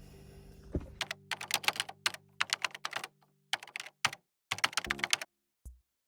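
Typing on a keyboard: quick, irregular bursts of key clicks, over faint background music that fades out about four seconds in.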